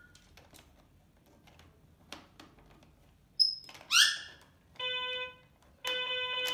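Children's electronic toy piano sounding two notes of the same pitch as an African grey parrot presses its keys with its beak, a short one and then a longer one about a second later. A brief high whistle and a sweeping chirp come just before the notes.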